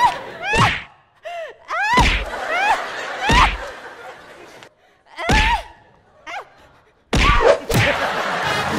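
A man's short, high-pitched vocal squeals of 'é!', about eight of them, each a quick rise and fall in pitch. Several land together with a dull thud. A louder burst of noise comes near the end.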